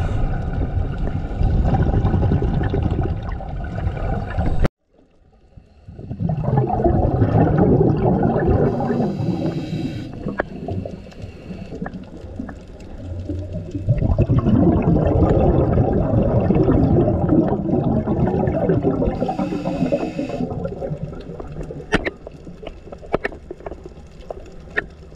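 Scuba regulator breathing heard underwater: long rushing, gurgling surges of exhaled bubbles, with short higher hisses between them. The sound cuts out suddenly about five seconds in, and a few sharp clicks come near the end.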